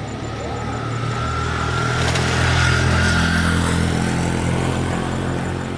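Motorbike engine running, growing louder to a peak about halfway through, then easing off.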